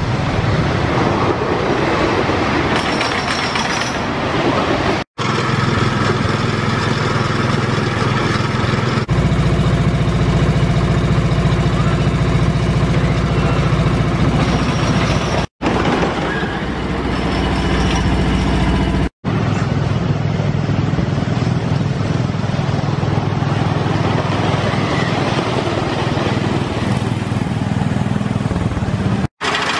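Wooden roller coaster trains rumbling over the track, a loud continuous rumble heard in several short clips joined by abrupt cuts.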